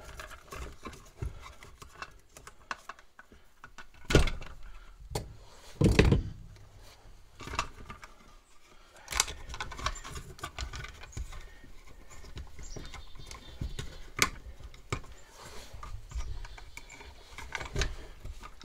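Handling noise of a blue plastic electrical box and Romex cable being worked into a drywall cutout: scattered knocks, clicks and rustles, with the loudest knocks about four and six seconds in.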